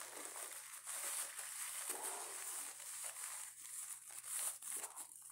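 Paper coffee filter crinkling and rustling as it is pushed and worked inside a cloth mask, a steady run of small crackles.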